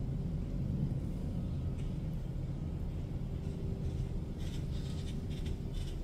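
A steady low rumble and hum, with a quick run of faint light clicks from about four and a half seconds in, from a red-winged blackbird's beak pecking seed in a plastic tray feeder.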